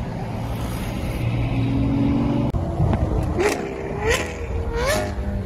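Steady engine and road noise of cars at highway speed. Then, after a cut, a Lamborghini Aventador's V12 revs three times in quick succession, each rise in pitch ending in a sharp crack.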